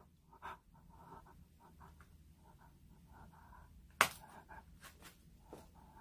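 Faint rustling and light knocks from a person moving about and handling things, with one sharp click about four seconds in.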